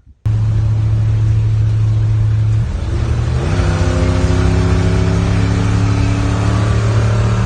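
Truck engine running loud and revving, its pitch stepping up about three seconds in and then climbing slowly; it sounded bad.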